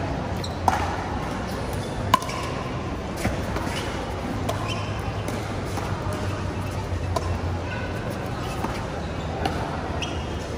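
Pickleball paddles hitting the plastic ball during a doubles rally: a few sharp pops, the loudest about two seconds in, over a steady murmur of crowd chatter.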